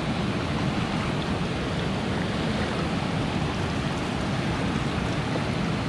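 Fast whitewater river rushing steadily over rapids.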